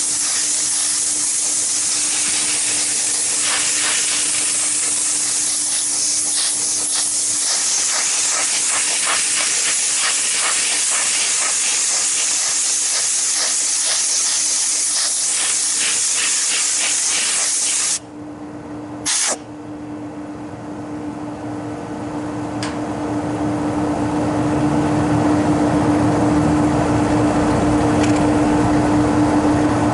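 Compressed air hissing loudly as it is blown through a dust-plugged walk-in freezer condenser coil. The air cuts off suddenly about two-thirds of the way in, with one more short blast a second later. Underneath, the condensing unit hums with a steady tone that swells louder over the following few seconds as the cleared coil lets the fan move more air.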